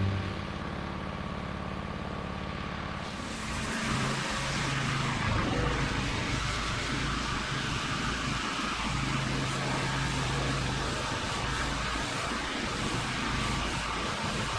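A 2800 psi pressure washer running steadily under load, its engine hum under the hiss of the high-pressure spray on concrete. The hiss grows louder and fuller about three to four seconds in.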